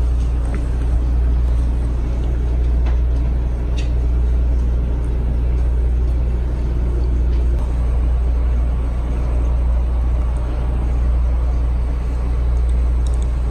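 A steady low rumbling hum, strongest in the bass, with a few faint clicks.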